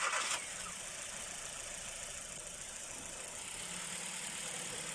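2016 Kia Cerato's four-cylinder petrol engine, just started, with a brief louder rush right at the start, then idling steadily. It runs smoothly with no misfire now that burnt wiring at the cylinder 2 ignition coil connector has been cleaned.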